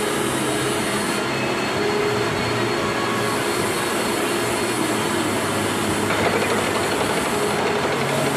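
Milling machine running, its spinning multi-tooth cutter cutting the teeth of a worm gear: a loud, steady machining noise with a faint hum under it.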